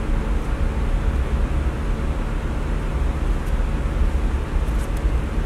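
Steady low rumble with a hiss over it, a constant mechanical background noise, with a few faint light clicks near the end.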